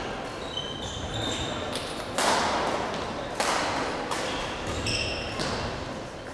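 Badminton rally: several sharp racket strikes on the shuttlecock, about a second apart, with brief sneaker squeaks on the sports hall floor. Each strike echoes in the large hall.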